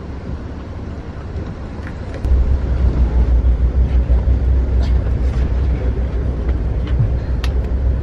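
Rumble of a moving Amtrak passenger train heard from inside the car, wheels running on the rails. It gets suddenly louder and deeper about two seconds in, and a few sharp clicks sound in the second half.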